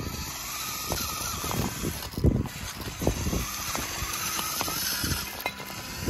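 Remote-control toy tractor's drive motor and gears whining under load as it pulls a trolley heavy with soil and concrete slabs. The whine rises and falls, and the tyres crunch and crackle over dirt and grit.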